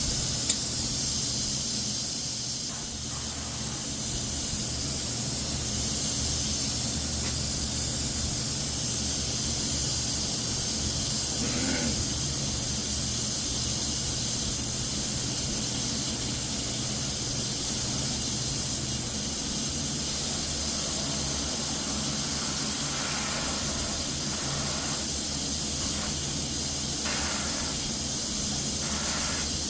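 Compressed-air spray gun hissing steadily while Cerakote coating is sprayed, with a slight dip a couple of seconds in.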